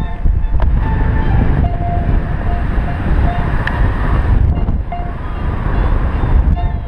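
Airflow buffeting a paraglider pilot's camera microphone in flight, a loud steady rush. Short steady beeps come and go at intervals, typical of a variometer signalling lift.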